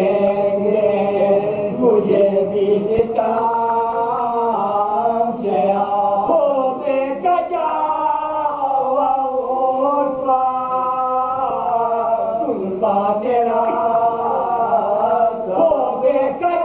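Several men chanting a marsiya, a Shia Urdu elegy, together in soz-khwani style, unaccompanied. They hold long notes that slide up and down in pitch.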